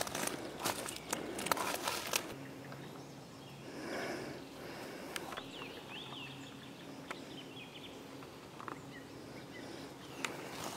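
Footsteps crackling over dry twigs and forest litter in the first two seconds and again near the end, with a quieter outdoor stretch between. A few short bird chirps come in the middle.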